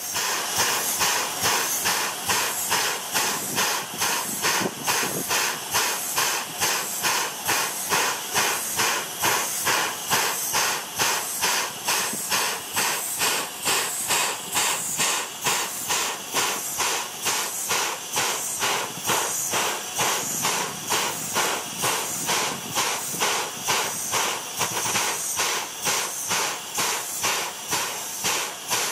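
Standing JNR C10 steam tank locomotive letting off steam: a loud steady hiss that pulses in an even, unbroken rhythm, typical of the locomotive's steam-driven air pump working while it waits at the platform.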